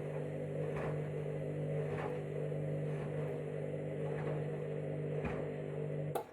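Candy washing machine's drum motor running steadily as the KG Detector turns the drum to weigh a small load, with a faint knock about every second. Near the end it cuts off with a sharp click.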